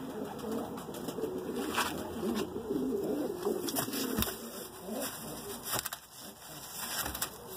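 Pigeon cooing, low and wavering, for about the first four seconds, with a few scattered knocks and taps throughout.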